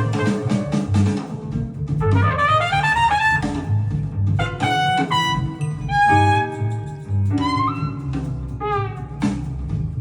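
Jazz with brass horns over bass and drums, played back through a pair of Cabasse Minorca MC40 three-way bookshelf speakers.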